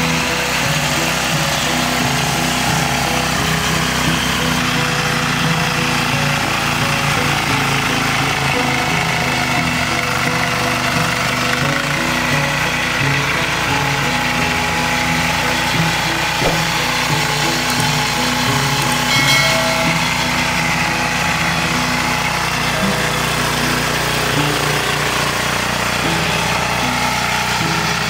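Single-cylinder air-cooled diesel engine (186FA) of a 10 hp mini power tiller running steadily under load as its rotary tines till the soil.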